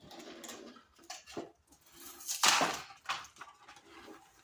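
Small toy lockers and their packaging being handled: irregular rustling and clicking, with a louder clatter about two and a half seconds in.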